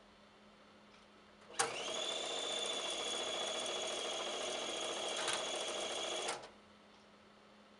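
Akai GX-F95 cassette deck fast-winding a tape. After a click, the transport motor whirs up with a short rising whine and holds steady for about five seconds. It stops about six seconds in.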